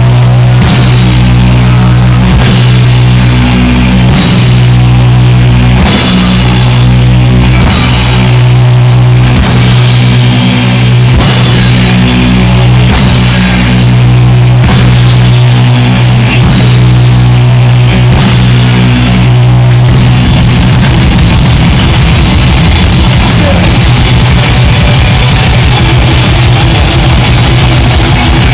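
Punk rock band playing live: distorted electric guitars, bass guitar and drum kit through loud amplifiers, with no singing. About twenty seconds in the held, chord-driven playing changes to a fast, choppy rhythm.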